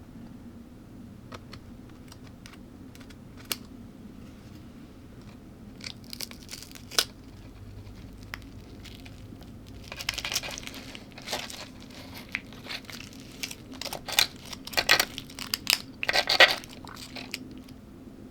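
Close-up handling noises as a meal is readied for eating: scattered sharp clicks and short rustles. They grow busier and louder over the second half, with the loudest bursts near the end.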